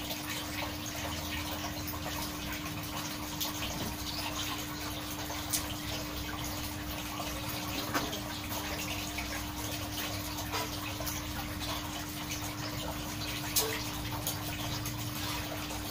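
Aquarium water bubbling and running steadily, with a steady low hum under it and a few small ticks.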